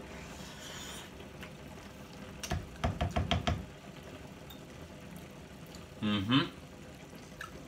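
Pots on the boil hissing steadily. About two and a half seconds in comes a quick run of knocks lasting about a second. Near the end there is a short appreciative "mmm" from the man tasting the sauce.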